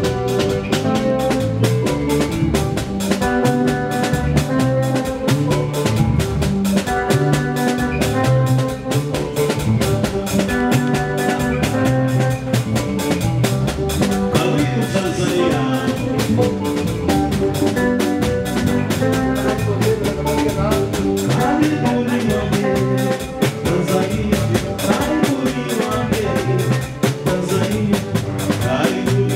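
Live band music: a drum kit keeps a steady beat under held chords and a bass line.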